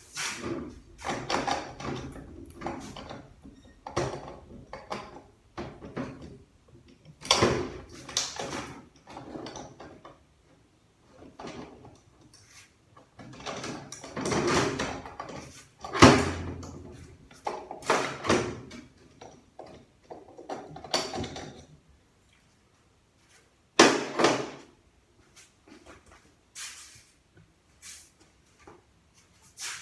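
Irregular metal clinks, scrapes and knocks of hand tools and steel parts inside a ZF 8-speed automatic transmission as a stubborn snap ring is worked loose. The loudest knocks come about halfway through and again about two-thirds of the way in.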